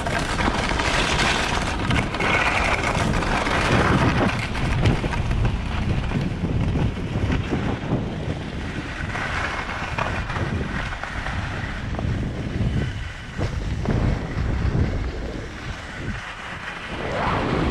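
Wind buffeting the microphone of a skier's camera at speed, a steady rumbling noise mixed with the hiss and scrape of skis running over snow. It eases for a moment shortly before the end, then picks up again.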